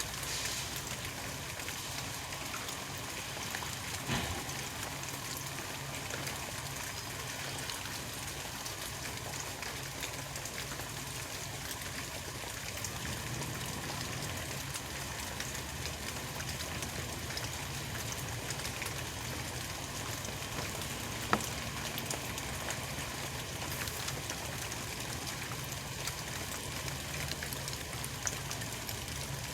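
Steady rushing background noise with a low hum, broken by a soft knock about four seconds in and one sharp bang about 21 seconds in.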